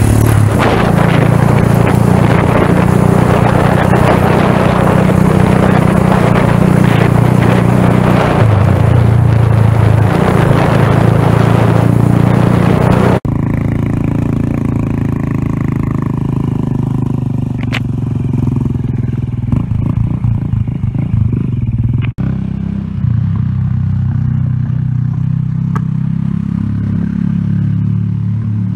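Small motorcycle engine running steadily while being ridden, with heavy wind noise on the microphone. The wind noise drops away about halfway through, leaving the engine hum plainer.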